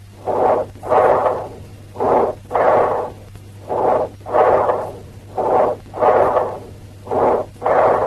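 Recorded bronchial breath sounds: five breaths, each a short inspiratory rush, a brief pause, then a longer expiratory rush.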